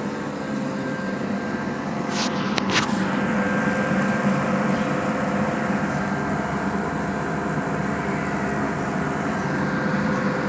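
Homemade evaporative air cooler's electric fan running with a steady hum, getting slightly louder about two seconds in. Two short sharp noises come just after that.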